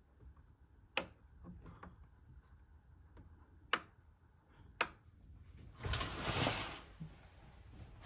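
Three sharp clicks of light switches being flipped, about a second in and twice more around the middle, then a long swish of curtains being drawn open along their rail near the end.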